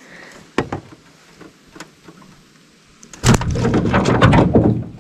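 A freshly landed crappie flopping in a landing net in the bottom of a metal jon boat. There are a few light knocks, then a loud rattling clatter for about a second and a half, starting about three seconds in.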